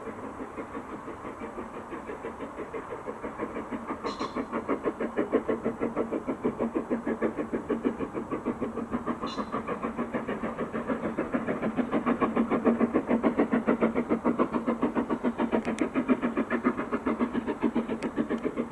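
BR Standard Class 9F 2-10-0 steam locomotive working hard up a gradient, its exhaust beating sharply and evenly at about four beats a second. The beats grow louder as it nears.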